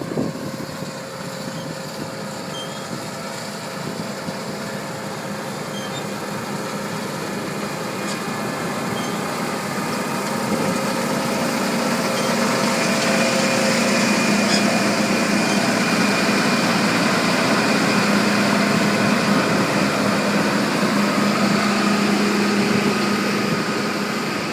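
Large John Deere combine harvester running while harvesting wheat: a steady engine and machinery drone with several held tones, growing louder over the first half and then holding steady.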